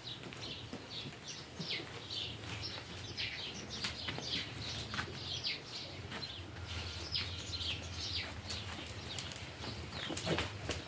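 Small birds chirping busily: many short, downward-sliding chirps, several a second, over a steady low hum, with scattered clicks.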